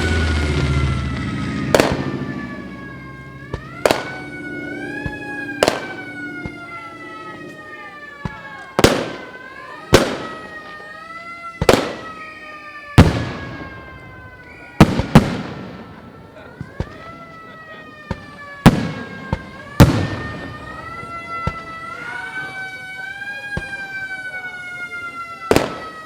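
Air-raid siren wailing, its pitch slowly rising and falling, under a series of loud, sharp bangs a second or two apart, each ringing out briefly. A low rumble dies away in the first couple of seconds.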